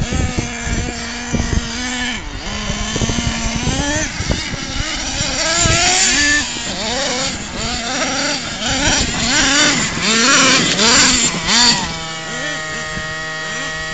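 Small nitro engine of an RC monster truck revving up and down over and over as it is driven, then settling to a steady idle about twelve seconds in.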